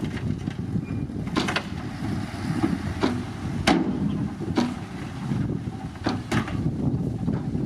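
Diesel engine of heavy earthmoving equipment running steadily, with about seven sharp clanks or knocks scattered through.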